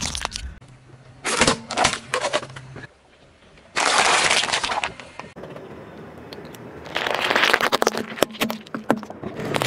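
A car tyre rolling over and crushing things in three short bouts. First come sharp cracks as small plastic toy cars break under it. About four seconds in, a plastic-wrapped pack of cherry tomatoes gives a dense, loud crackle as the packaging and tomatoes give way. Near the end there is more crackling and cracking as a soft blue object is squashed.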